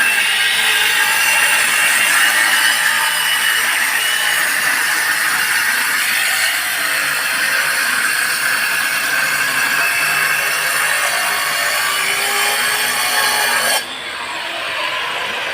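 Angle grinder cutting through a plastic PPRC pipe: a steady high-pitched whine and grinding, its pitch wavering slightly as the disc is loaded. Near the end the sound drops off abruptly to a quieter level.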